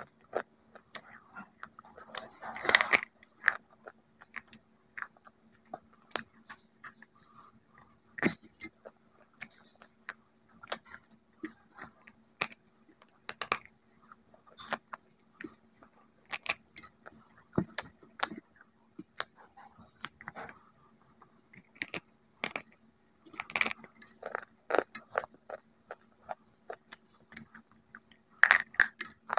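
Hard, crumbly white bar being bitten and crunched: crisp, irregular cracks and snaps, several in quick clusters, with quieter chewing between them.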